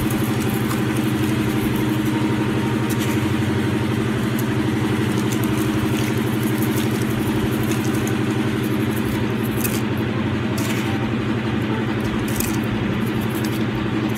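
Steady low machine hum at an even level, with a few faint short ticks in the last few seconds.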